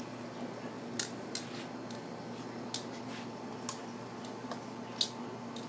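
Metal grill tongs clicking, about five short, sharp clicks at irregular intervals over a steady low hum.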